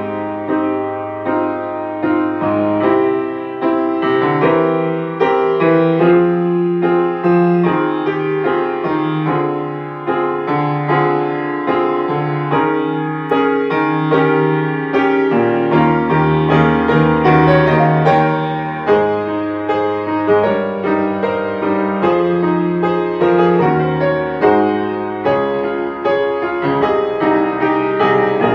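Piano playing the accompaniment part of a choral song on its own, a steady flow of chords and melody notes without singing.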